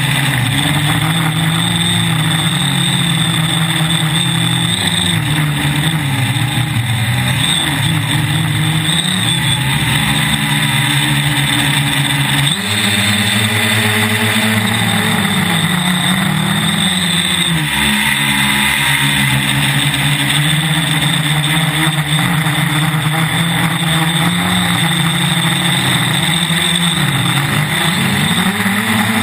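Quadcopter's electric motors and propellers buzzing, heard close from the drone's own onboard camera, the pitch rising and falling as the throttle changes, with a sudden shift about halfway through.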